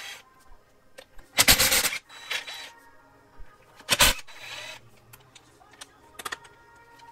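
Cordless impact wrench running in short bursts as it spins lug nuts off a car wheel: a longer burst about a second and a half in and a brief one about four seconds in, with small clicks around them.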